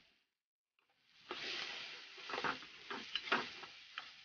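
Macaroni frying in a pan on a gas stove, sizzling, while a spoon scrapes and knocks against the pan as it is stirred. The sound starts about a second in, after a brief silence.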